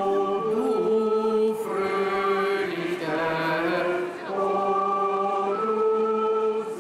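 A woman singing slow, chant-like phrases of long held notes into a microphone, with short breaks between phrases.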